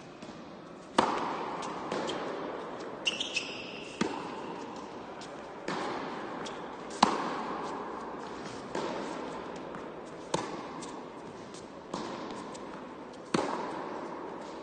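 Tennis rally on an indoor hard court: sharp racket strikes and ball bounces come every second or two, each ringing on in the big hall. The serve, about a second in, is among the loudest hits, and there is a brief squeak just after three seconds.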